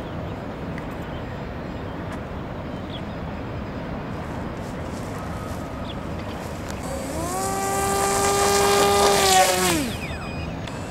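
Electric motor and propeller of an Art-Tech Coota RC amphibian plane spooling up to a steady high whine for about two and a half seconds, then winding down and stopping. This is a ground run-up after a checked motor. Before it there are several seconds of steady outdoor background noise.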